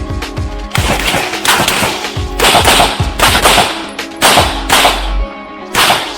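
Rapid gunfire: about a dozen sharp shots, irregularly spaced, several a second, each with a short echo, over music playing underneath.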